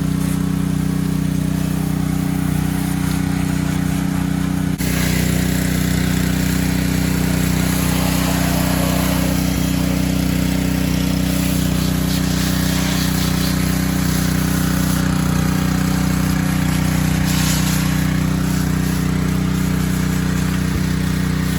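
An engine running steadily with an even, low hum and a hiss of noise above it. The sound changes abruptly about five seconds in.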